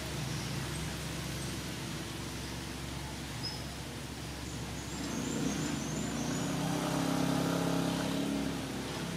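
Steady low background rumble, with a motor vehicle's engine hum that builds about halfway through and fades out near the end, like a vehicle passing.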